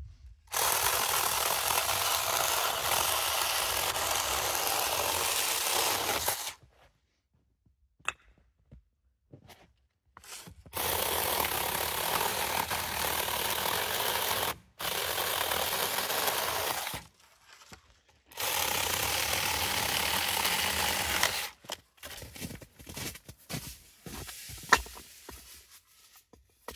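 Zeeksaw battery electric chainsaw cutting firewood in four runs of a few seconds each, the first the longest at about six seconds, switching on and off sharply. Scattered knocks and clicks in the last few seconds.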